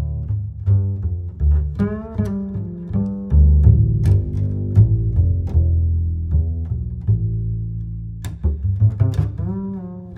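Background music: deep sustained bass notes under a higher, wavering melody line.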